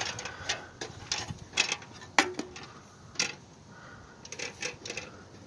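Irregular sharp knocks and clicks from climbing wooden boards built against a tree trunk, the loudest about two seconds in.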